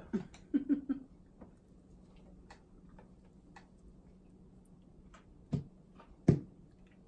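Small clicks and soft knocks of a paper cup and hands on a cloth-covered table while a drink is tasted, with two louder knocks about a second apart near the end.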